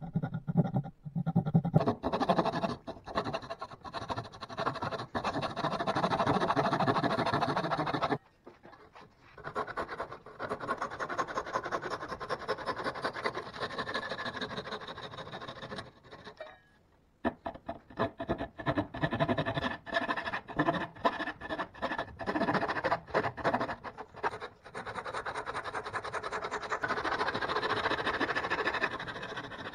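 Handsaw cutting dovetails in pallet-wood boards: quick, rhythmic back-and-forth rasping strokes, which stop briefly about eight seconds in and again around seventeen seconds.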